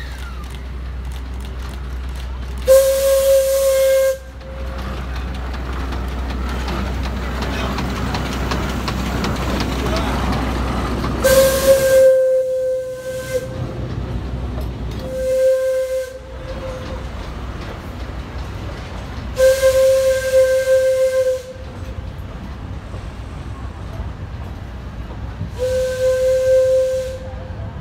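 Steam whistle of the SL-31 Shay geared steam locomotive, blown five times in blasts of one to two seconds, each a single steady pitch with a breathy hiss. Between the blasts there is a steady hiss and low rumble.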